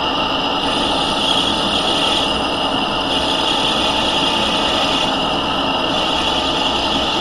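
Smithy lathe running steadily at about 640 rpm with a constant high whine, taking a light turning pass of ten thousandths of an inch on the workpiece.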